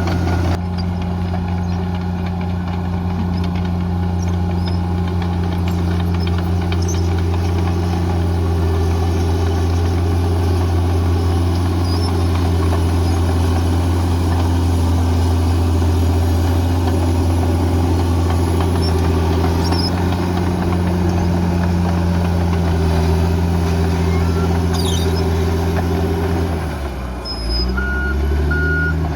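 Bulldozer diesel engine running steadily under load. Near the end its pitch sags and climbs back, and a reversing alarm starts beeping at an even pace as the machine backs up.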